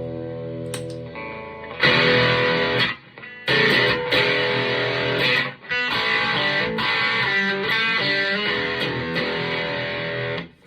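Electric guitar played through a Marshall MG50 FX amplifier. A held chord rings out, then louder strummed chords play with two brief breaks and stop suddenly just before the end.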